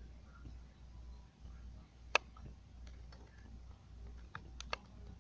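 A single sharp click about two seconds in, then a quick run of four or five clicks near the end, over a low steady hum.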